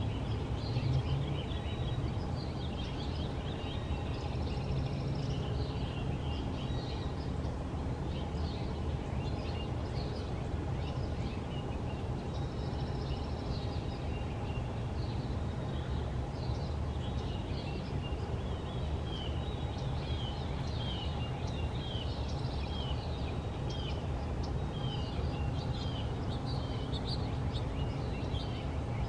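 Songbirds chirping and singing, many short chirps repeating throughout, over a steady low background rumble.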